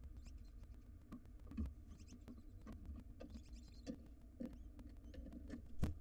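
Light taps and scratches on a wooden barn owl nest box, with a few faint high squeaks, then a single thump near the end as the adult barn owl drops into the box.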